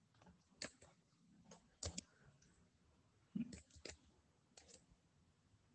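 Faint, irregular keystrokes on a computer keyboard, single taps and quick pairs spaced out with pauses, as characters are typed.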